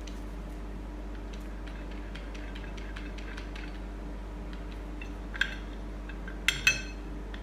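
Light metallic clicks and clinks from the BMW K1200S clutch assembly being handled, with a few sharper clinks near the end, over a steady low hum.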